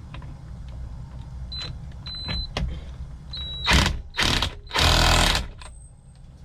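Impact wrench with a 1 1/4 inch socket run up on the steering shaft's centre nut in three bursts, the last the longest at nearly a second, after a few light clicks as the socket is fitted. A steady low hum runs underneath.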